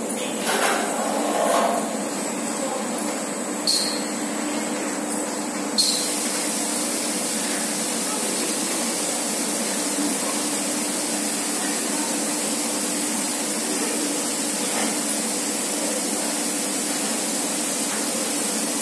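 Big bag filling and conveying line running with a steady machine hum and a few short clanks in the first several seconds. About six seconds in, a steady high hiss switches on abruptly and holds.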